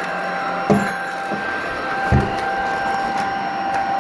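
Tocmoc T230 cordless stick vacuum running with a steady motor whine and suction rush. Two dull thumps come about a second in and again about two seconds in.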